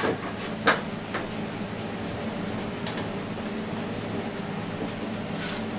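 Oxy-fuel torch flame hissing steadily as it heats a steel plate red-hot, with a few light clicks.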